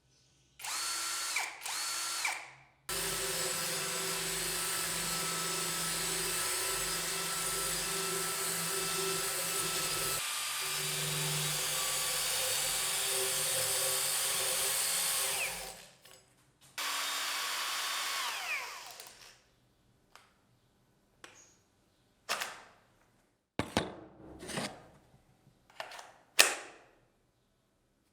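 Hand-held electric power tool, drill-like, run in bursts. It gives two short runs, then one long steady run of about thirteen seconds, another run of a few seconds, and several brief blips near the end.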